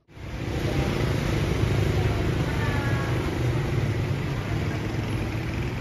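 Outdoor city ambience: a steady low rumble of road traffic.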